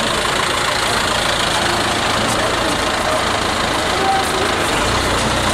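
Diesel engine of an Eicher crane truck idling with a steady low rumble, which grows stronger near the end.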